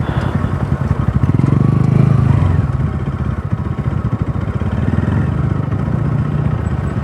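Bajaj Pulsar NS200's single-cylinder engine running as the motorcycle is ridden, picking up about a second in and easing off again a couple of seconds later.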